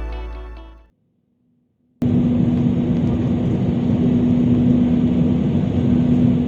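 Background music fades out within the first second, then after a brief silence the steady noise of an Airbus A320neo's passenger cabin starts abruptly: an even rushing of engines and airflow with a constant low hum.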